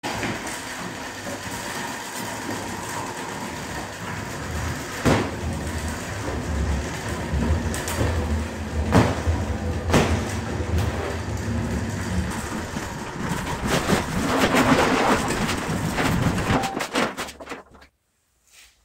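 Sectional garage door rolling open on its tracks: a steady rattling rumble with sharp knocks about five, nine and ten seconds in, cutting off suddenly near the end.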